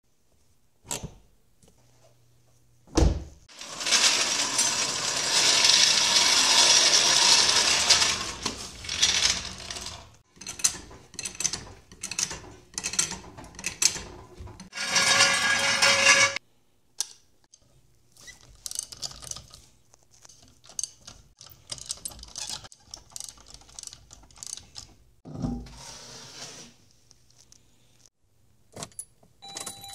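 Car jacking and wheel removal: a hydraulic floor jack's handle is pumped in a run of strokes, among clanks, clicks and ratchet-like sounds of hand tools. There is a sharp thump about three seconds in, and several seconds of loud steady rushing noise soon after.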